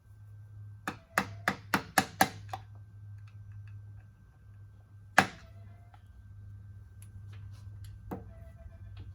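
Hammer taps on metal while working on a driveshaft universal joint: a quick run of about seven sharp knocks, then one loud single strike and a softer one later.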